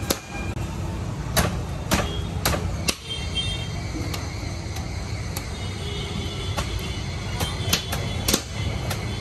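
Flaky parottas being clapped and crushed between the hands to fluff up the layers: a series of sharp slaps, often about half a second apart, over a steady low rumble.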